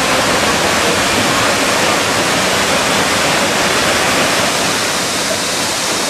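Loud, steady rushing roar of a large mountain waterfall close by, an even wash of falling water that eases slightly about two thirds of the way through.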